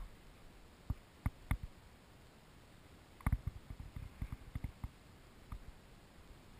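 Irregular soft knocks and clicks from a GoPro camera being handled and moved, with the loudest cluster about three seconds in and more knocks shortly after.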